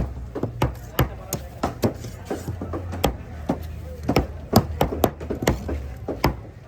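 A knife or cleaver chopping through fish onto a cutting block, sharp strokes coming irregularly at about two to three a second, over a low steady hum.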